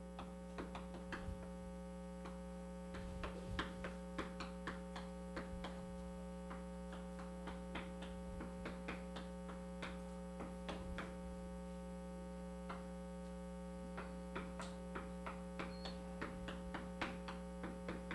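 Chalk tapping and scratching on a blackboard as equations are written: many short, irregular taps and clicks over a steady low hum.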